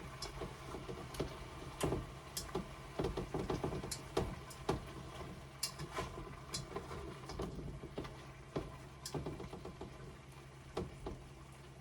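Cucumber and shrimp being stir-fried in a pan: irregular light clicks and knocks as the pan and its contents are worked, over a steady low hum.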